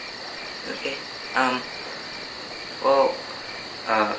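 Crickets chirping in rapid, even pulses over a steady high buzz, with a few short pitched sounds breaking in.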